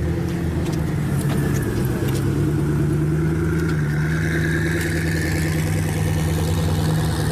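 Koenigsegg Agera hypercar's twin-turbo V8 running steadily at low revs as the car pulls slowly away, a deep even engine note.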